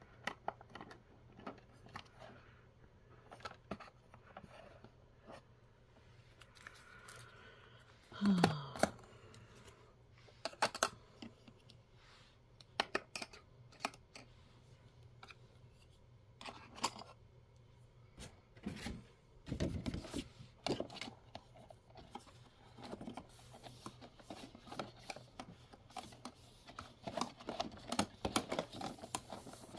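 Small plastic toy pieces being handled and set into a hard plastic storage case: light, irregular clicks and taps, with a dull bump about two-thirds of the way through. Near the end, a cardboard insert is slid and scraped against the case, giving denser rustling.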